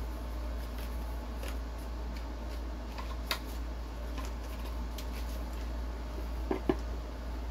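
A steady low hum with a few faint, short clicks and taps scattered through it, the loudest a quick pair of clicks near the end.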